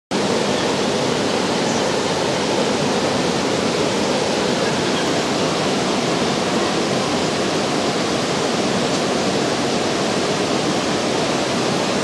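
Steady rush of fast-flowing river water, an even noise that holds without a break.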